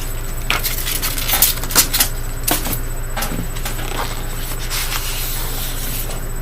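Papers and packaging being handled: a few light, sharp clicks in the first three seconds, then softer rustling, over a steady low electrical hum.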